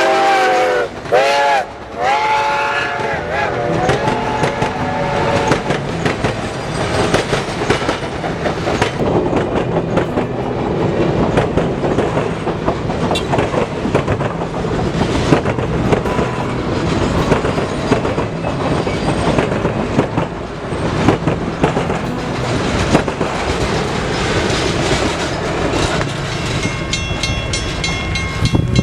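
Reading T1 No. 2102, a 4-8-4 steam locomotive, sounding its chime whistle for about the first three seconds, with two short breaks. Then the train passes close by with loud, continuous rumbling and wheel clatter.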